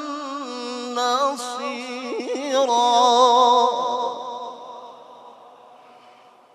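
A male qari chanting Quran recitation in an ornamented, melismatic style, holding and wavering the long final syllables of a verse. The voice stops a little over halfway through and trails off in a fading echo.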